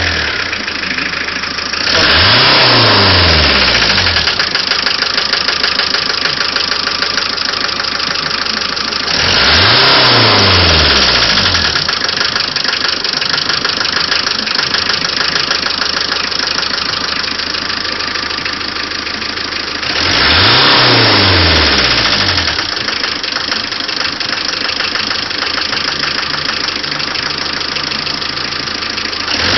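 Renault Kangoo 1.9 diesel engine idling with a knock from a faulty fuel injector, a fault that replacing the injector cured. The engine is blipped three times, each rev rising and falling over about two seconds.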